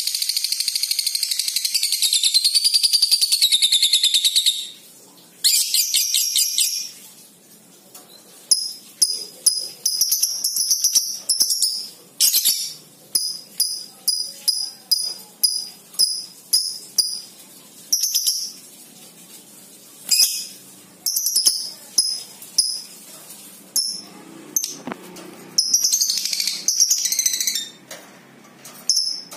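Fischer's lovebird giving a long, continuous high wavering chatter (ngekek) for about four and a half seconds, then a shorter burst, then a run of short sharp chirps at about one or two a second, with another dense chatter near the end. The long ngekek is its challenge to a rival lovebird.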